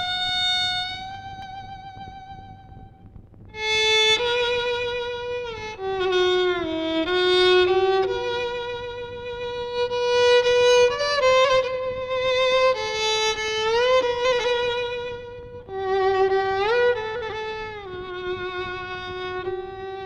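Background music: a solo violin playing a slow, legato melody with vibrato and sliding notes. A held note fades out about two seconds in, and the melody starts again a second or so later.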